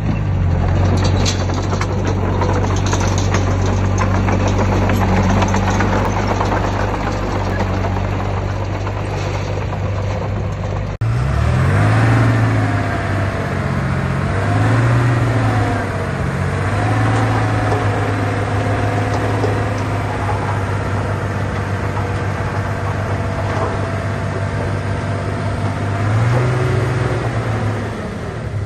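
Heavy diesel engine of earthmoving equipment running steadily. After an abrupt cut about eleven seconds in, an engine revs up and down several times under load.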